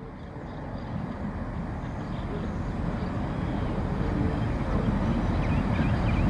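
EMD GR-12 diesel locomotive approaching with its passenger train. The two-stroke diesel engine and the rumble of the train grow steadily louder as it draws near.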